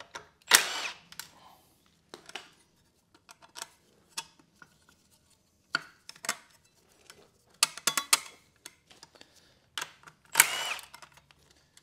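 Milwaukee cordless power tool spinning twice in short bursts of about half a second, about half a second in and again near the end, as it runs bolts out of the Nissan CVT case. Between the bursts come scattered metallic clicks and clinks of bolts and parts being handled.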